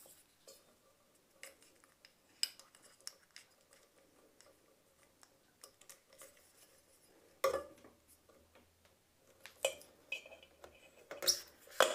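Hands handling a plastic ceiling-fan trim cover and threading wires through it: scattered light clicks and rustles, with a few sharper knocks, the loudest about seven and a half seconds in.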